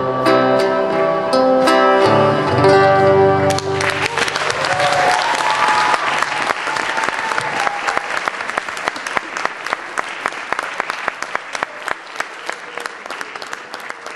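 An acoustic guitar plays the song's closing chords, the last one strummed and left ringing. About three and a half seconds in, audience applause breaks out and slowly fades away.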